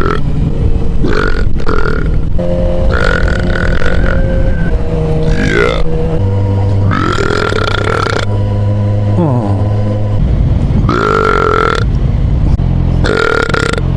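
A man belching: a string of long, drawn-out burps one after another with short gaps, some of them sliding in pitch.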